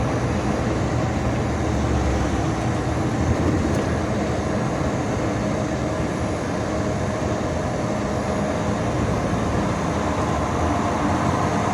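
Volkswagen Constellation 19.320 truck's diesel engine running steadily at about 1,200 rpm while cruising at around 70 km/h, with road noise.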